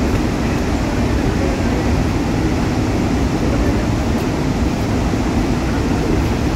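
Steady, loud rushing of a large waterfall close by: an unbroken wash of falling water, heaviest in the low end.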